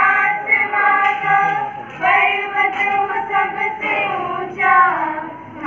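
Children's voices singing a song in long held notes, with brief breaks between phrases.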